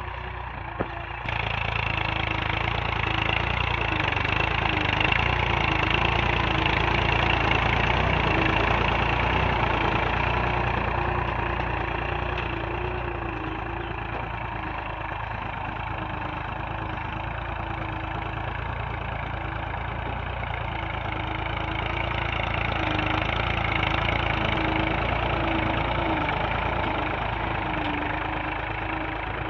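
Massey Ferguson 260 tractor's three-cylinder diesel engine running steadily under load, pulling a tined cultivator through the soil; the sound grows louder about a second in.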